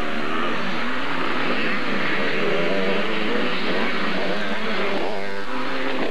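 Several 80cc two-stroke motocross bikes racing, their engines overlapping and rising and falling in pitch as the riders work the throttles, with one engine revving up about five seconds in.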